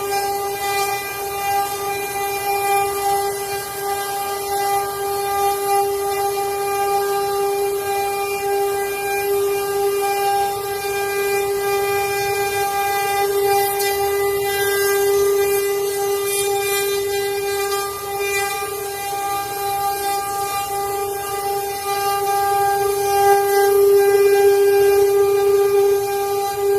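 CNC wood router's spindle motor running with a steady high whine and a noisy hiss underneath.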